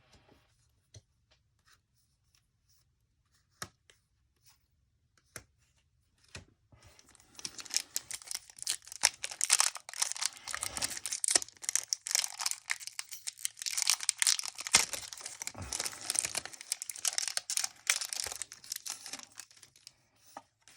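A few faint clicks of cards being handled, then from about seven seconds in, a foil trading-card booster pack wrapper being torn open and crinkled, with dense crackling that runs on until just before the end.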